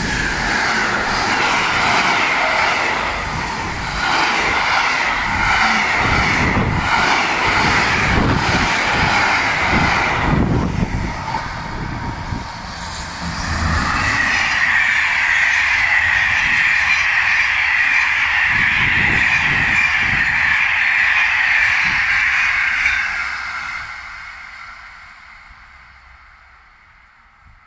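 Two electric trains passing at once. First a Euro Cargo Rail freight train rumbles by close up, its wagons knocking as they pass. Then an SNCF BB 26000 locomotive hauling an Intercités train goes by with a loud steady rushing noise, which fades away over the last few seconds as the train recedes.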